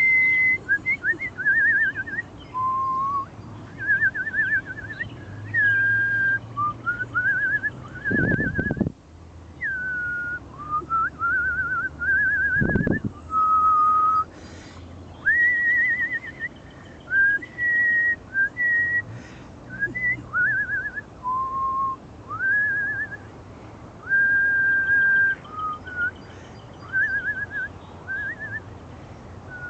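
A woman whistling a wandering, birdlike tune of short rising slides, quick trills and held notes, with pauses between phrases. Two dull thumps come about 8 and 13 seconds in.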